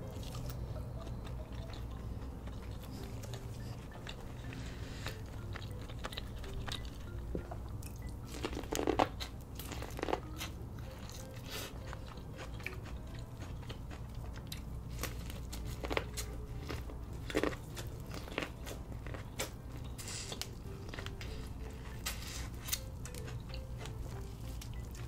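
Close-up mukbang eating sounds: chewing and biting into seafood boil with cheesy sauce, with scattered sharp crunchy clicks, the loudest about nine and ten seconds in.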